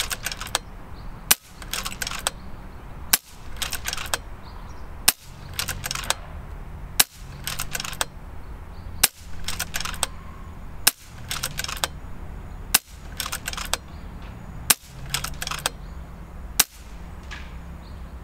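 FX Impact M3 PCP air rifle firing a steady string of nine shots, about one every two seconds. Each crack is followed within half a second by a short run of clicks as the side lever is cycled to cock and load the next pellet.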